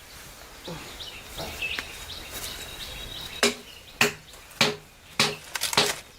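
Birds chirp faintly, then about three and a half seconds in a run of sharp knocks starts, a blow roughly every half second, typical of tool strikes during house repair work.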